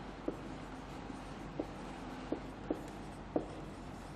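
Marker pen writing on a whiteboard: faint scratching of the tip with a handful of short ticks as the strokes of the letters are drawn.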